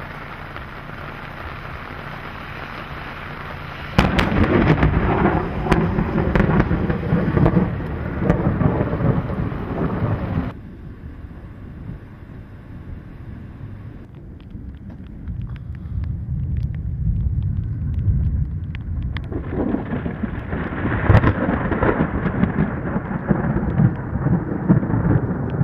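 Thunder: a low rumble, then a sudden loud crack of thunder about four seconds in that rolls on for several seconds, dies back to a quieter rumble, and builds again to another loud peal later on.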